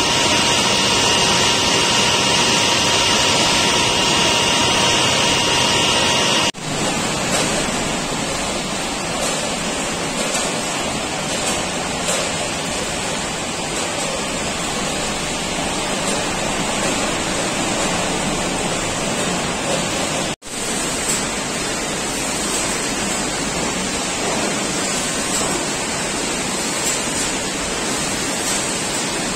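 Loud, steady noise of snack-factory production-line machinery and conveyors. For about the first six seconds a steady high whine of two tones sits over it. The noise drops out for an instant twice, about six seconds in and about twenty seconds in.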